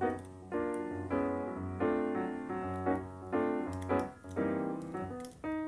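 Background keyboard music: chords struck about every half second to second over a steady bass line, starting right at the beginning.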